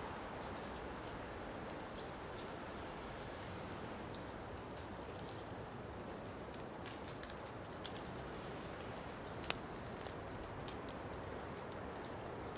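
Faint outdoor ambience with steady background noise and a songbird repeating a short high phrase that steps down in pitch, about every four seconds. A couple of faint clicks.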